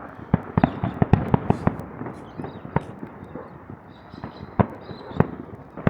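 Fireworks going off: a quick run of bangs and crackles for about two seconds, then single bangs spaced a second or so apart.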